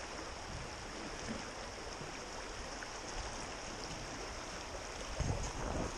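A fast, shallow river rushing steadily over rocks, with a few low thumps near the end.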